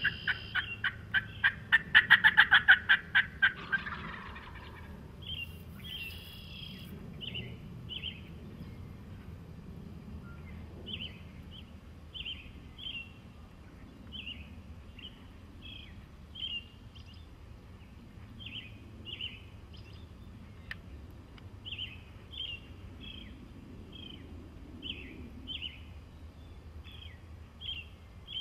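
A wild turkey gobbler gobbles: a loud, fast, rattling gobble over the first few seconds. After it a small songbird keeps repeating short chirping notes, about one or two a second.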